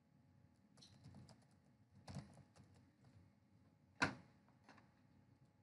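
Computer keyboard typing, quiet, in two short runs of keystrokes, then one sharper, louder click about four seconds in.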